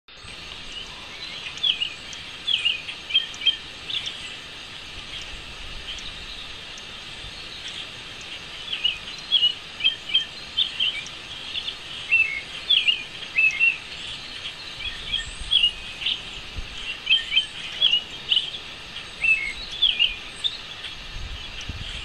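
Small songbirds chirping: short, sharp, high chirps in quick clusters, with a lull of a few seconds after the first handful, over a steady outdoor hiss.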